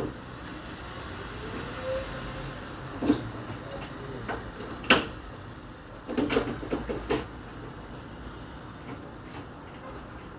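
A few sharp knocks, then a quick run of clattering knocks, over a steady background hum.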